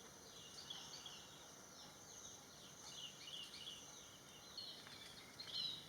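Faint bird chirping: a rapid, scattered series of short high squeaky notes, with a louder cluster of chirps near the end. A thin, steady high-pitched tone runs underneath and stops about four and a half seconds in.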